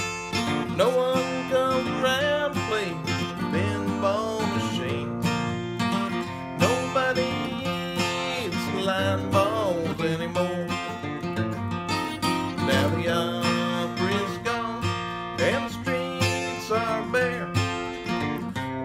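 Acoustic guitar played in a steady rhythm.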